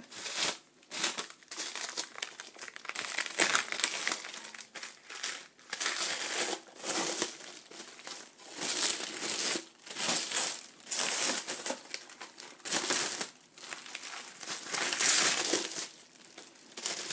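Wrapping being crinkled and pulled off a heavy metal keyboard case as it is unwrapped by hand, in a continuous run of rustling bursts a second or so apart.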